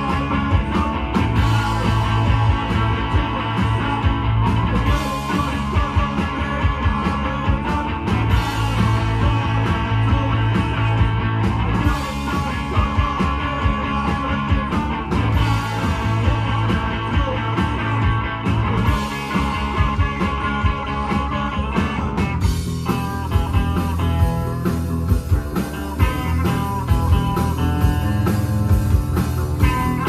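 Rock band playing live on electric guitar, bass guitar and drums, with a man singing. The guitar part changes about three-quarters of the way through.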